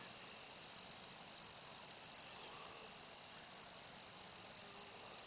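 Crickets singing: one holds a continuous high-pitched trill, while another chirps in regular pulses, about two or three a second.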